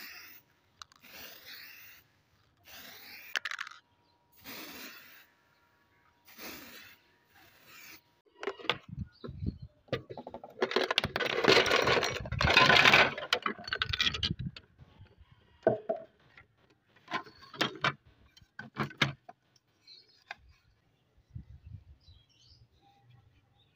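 An aerosol spray can hissing in about six short bursts. Then hard plastic sewing-machine parts clatter and knock loudly as they are handled, followed by scattered clicks and taps.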